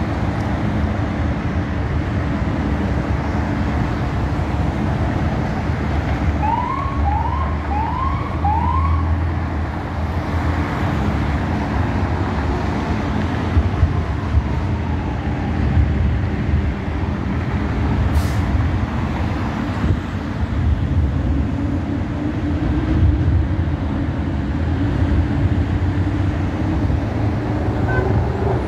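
Steady freeway traffic and road noise. About seven seconds in, an emergency vehicle's siren gives four quick rising whoops.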